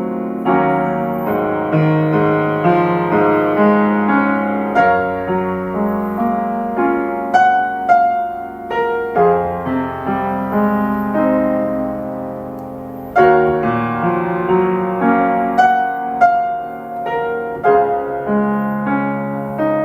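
Solo piano playing a slow melodic piece: notes and chords struck in phrases and left to ring, with a brief lull about two-thirds of the way through before a loud chord starts the next phrase.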